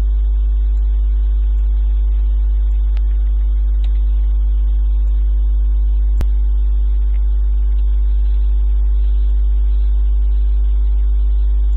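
Steady electrical mains hum with a stack of overtones, loud and unchanging, with a single sharp click about six seconds in.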